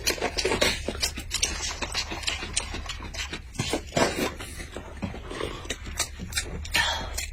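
Eating sounds: close, irregular smacking and crunching clicks of someone chewing, with light clinks of tableware, over a low steady hum.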